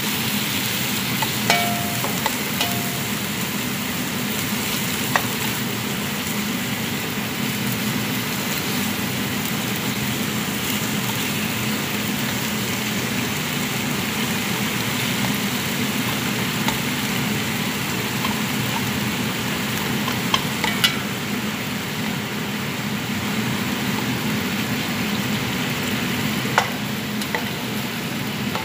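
Chicken fillet strips sizzling steadily in hot oil over high heat in a nonstick pan, turned with a spatula that knocks against the pan a few times.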